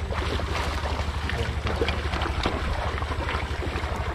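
Water splashing as people wade through shallow river water, over a steady low throb of a boat engine running.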